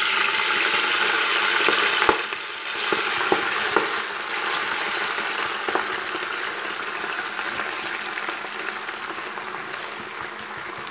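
Freshly washed kohlrabi greens sizzling in hot oil with asafoetida in a pressure cooker as they go in. The sizzle starts loud and eases slowly, with scattered sharp crackles.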